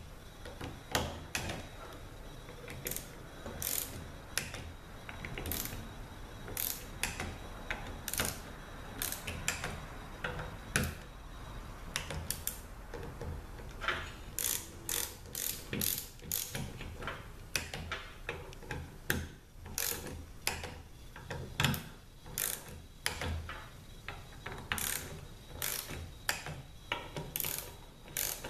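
Torque wrench ratcheting in short runs of sharp clicks as the bolts of an aluminium automatic-transmission valve body are run down to about 70 inch-pounds.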